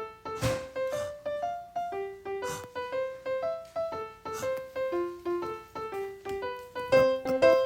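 Background music: a gentle piano-like keyboard melody of single notes, a few a second, growing fuller and louder near the end.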